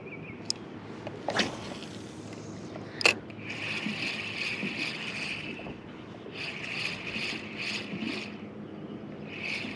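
Spinning reel being cranked in spurts, a rhythmic mechanical whir of a few pulses a second, with a couple of sharp clicks before it starts.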